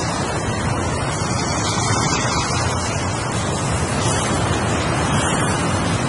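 Ocean surf: waves washing in as a continuous rush of noise that swells gently and eases.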